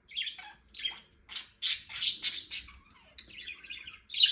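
Pet budgie (budgerigar) chirping: a quick run of short, high chirps that turns into continuous warbling chatter about three seconds in.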